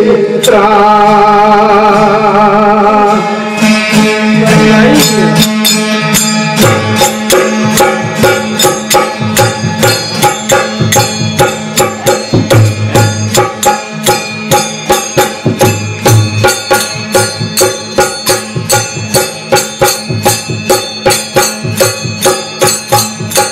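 Rajasthani devotional folk music. For about the first six seconds a man holds a long, wavering sung note over a tandura drone. The voice then stops, and the drone goes on under manjira hand cymbals clashing in a steady beat, about two strokes a second.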